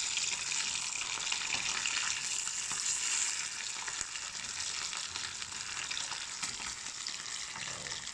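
Barramundi pieces frying in hot oil in a small wok, a steady bubbling sizzle, while a spatula turns the pieces. The sizzle eases slightly about three and a half seconds in.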